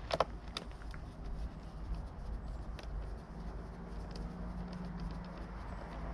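Light clicks and taps of a screwdriver and small plastic and metal parts being handled while screws are taken out of a motorcycle's rear tail section. The clicks cluster in the first second and turn sparse after. A steady low background rumble runs under them.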